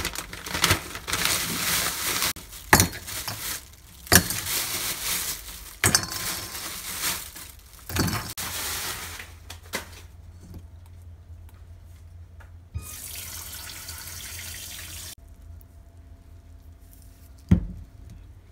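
Water from a kitchen tap splashing into a stainless-steel bowl of frozen shrimp. It runs unevenly with knocks through the first half, then runs steadily for a couple of seconds after a pause. A single knock comes near the end.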